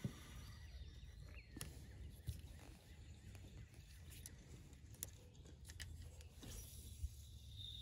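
Quiet outdoor ambience: a low rumble, a few sharp small clicks and knocks, and faint bird chirps.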